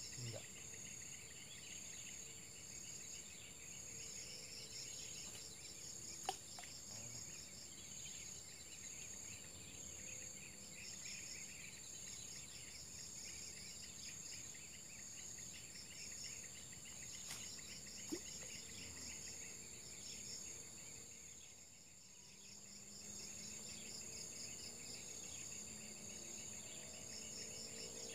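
Steady chorus of insects, a constant high drone with fast pulsing trills under it. Two sharp clicks, about six seconds in and about eighteen seconds in; the chorus dips briefly about three-quarters of the way through.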